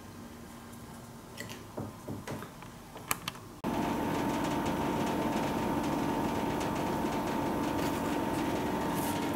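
A few light clicks and taps. Then, about a third of the way in, a steady mechanical hum starts suddenly, with a low drone and a higher steady tone over it.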